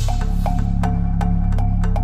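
Background music: sustained low bass tones under a steady beat of light, woody percussive clicks and short plucked notes.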